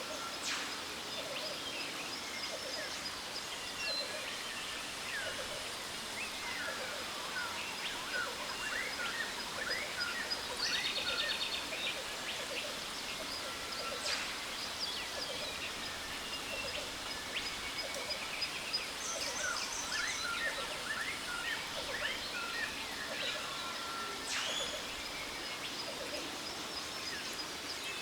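Jungle ambience: many birds chirping and calling, with a quick trill about ten seconds in, over a steady hiss of falling water from a waterfall and a thin, steady high tone.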